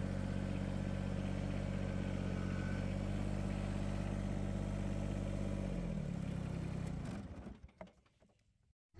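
Compact tractor engine running at a steady speed. About six seconds in its pitch shifts, and the sound fades out about a second and a half later.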